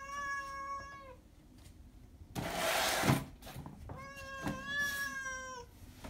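A tabby cat meowing twice for its food, two long drawn-out meows of steady pitch a few seconds apart. A short, loud noise comes between the two meows.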